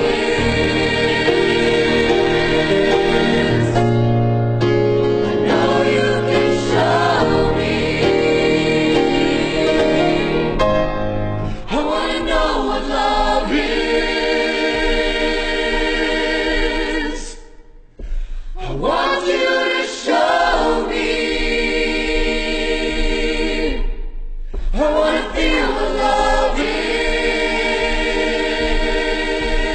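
A school choir singing in sustained chords. About twelve seconds in, the low accompaniment drops out and the voices carry on alone, in long phrases broken twice by short pauses.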